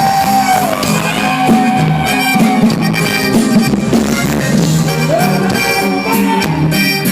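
Instrumental break of a norteño song: a reedy accordion melody with held, sliding notes over a steady bass line and strummed accompaniment.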